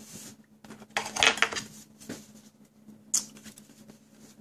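Small metal tweezers scratching and picking at the plastic wrapper on the end of a battery. There is a burst of scraping about a second in and a single sharp metallic click a little after three seconds.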